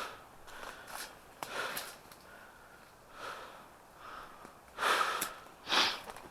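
Footsteps moving through undergrowth: irregular crunching and rustling steps on dry leaves and brush, the heaviest pair near the end.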